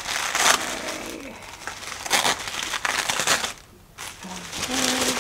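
Stiff white paper bag and tissue paper rustling and crinkling in several bursts as the packaging is handled and opened.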